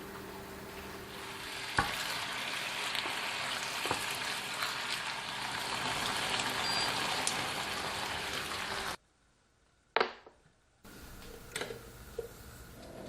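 Food sizzling as it fries in a pan, with a few light clicks of stirring. The sizzle stops abruptly about nine seconds in; there is one sharp click, then a quieter hiss with a few light knocks near the end.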